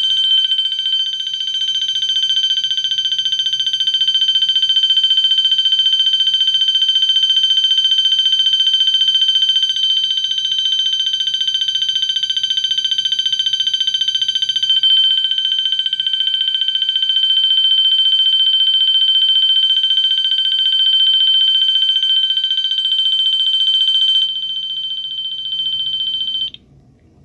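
Wheelock MT multitone fire alarm horn sounding its electronic bell tone: a loud, high, steady tone with a fast flutter. It drops a little in level near the end, then cuts off suddenly.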